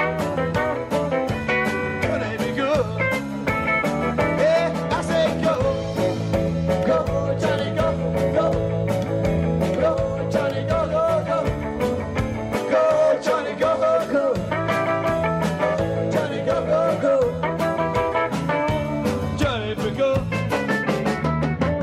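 Live rock and roll band playing an instrumental passage with no singing: electric guitar, bass guitar, keyboard and a drum kit keeping a steady beat.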